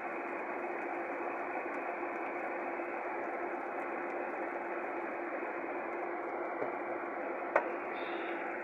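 Ground chili spice paste sizzling steadily as it fries in oil in a wok, with a single sharp click near the end.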